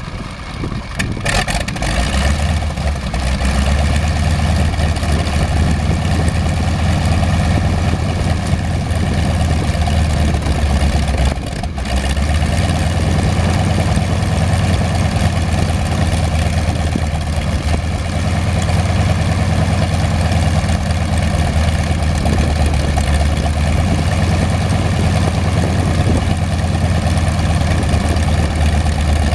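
Light aircraft's radial engine running steadily at idle after start-up, with a brief dip in the sound about a second in and again about eleven seconds in.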